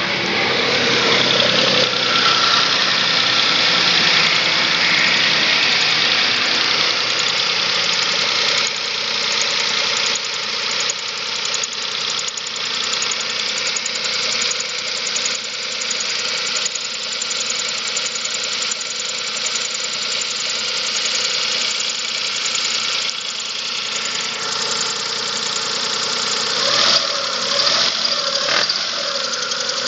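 Chevrolet Spark 0.8's three-cylinder engine idling with a steady, rapid ticking knock, which the owner takes for valve clatter on a cold engine whose valves have not been adjusted, or perhaps a camshaft problem.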